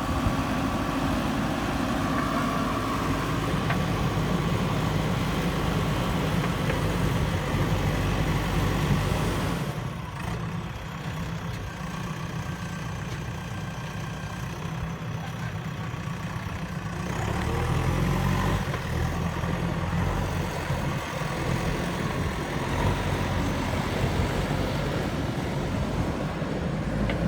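JCB 3DX backhoe loader's diesel engine running as the machine works. It drops to a quieter, lower running level about ten seconds in and works harder again from about seventeen seconds.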